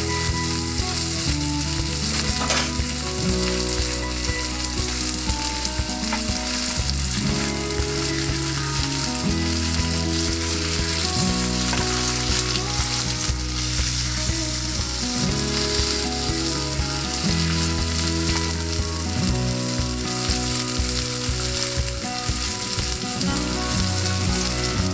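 Salmon fillets frying in garlic butter in a grill pan, a steady sizzle, with a fork and spatula scraping and tapping on the pan as the fillets are turned; a sharp click about two and a half seconds in. Low held tones that shift every second or so run underneath, like background music.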